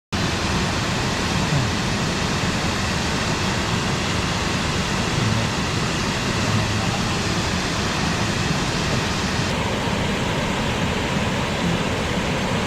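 Mountain stream water rushing over rocks: a steady, even hiss.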